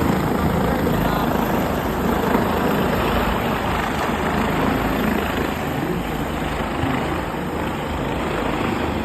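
Helicopter flying over, its rotor and engine making a steady noise.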